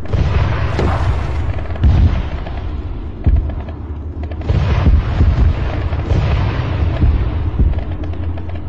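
Gunfire and explosions: irregular sharp booms and cracks over a constant heavy low rumble.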